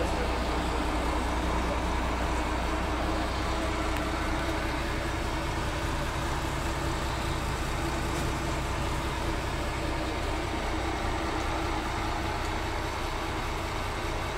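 Steady low rumble of a vehicle engine running nearby, under a constant wash of background noise.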